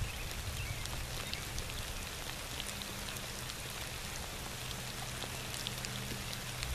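Rain falling steadily, an even hiss dotted with many small sharp raindrop ticks.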